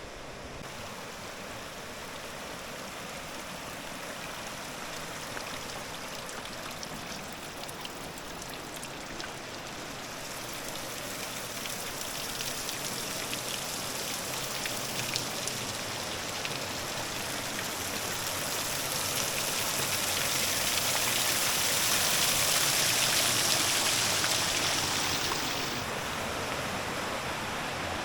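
A mountain stream rushing over rocks, a steady rush of water that swells over the second half and drops back quickly near the end.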